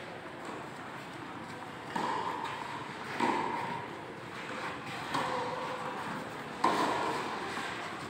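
Tennis ball struck back and forth with rackets in a doubles rally: four sharp pops a second or two apart, each ringing on in the big hall's echo.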